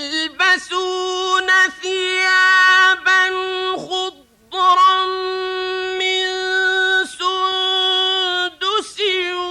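A man's voice reciting the Quran in the melodic mujawwad style, holding long, high notes with ornamented turns between them. There is a short pause for breath about four seconds in.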